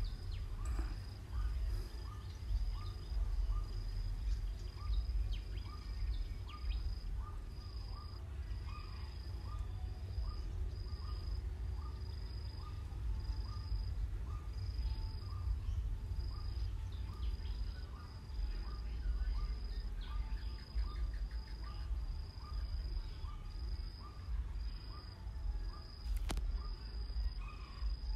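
Insects chirping in a steady, even rhythm, about one chirp a second, over a low steady hum, with a few faint clicks.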